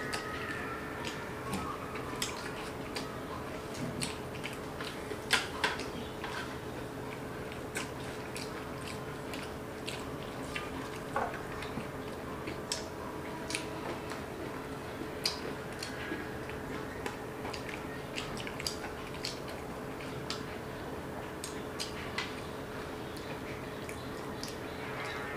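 Two people eating misal pav with their hands: chewing, soft bread rolls torn apart, and scattered short clicks and clinks against steel plates, the loudest about five seconds in. A steady faint hum runs underneath.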